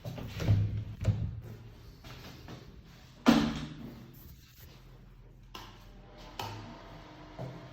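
A few knocks and thuds, the loudest a sharp bang about three seconds in that rings briefly as it dies away.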